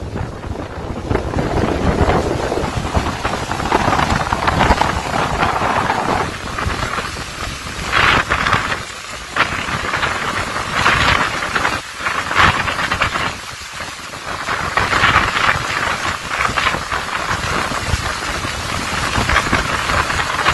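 Tropical-storm wind and heavy rain, the gusts swelling and easing every few seconds, with wind buffeting the microphone in a low rumble under the hiss of the rain.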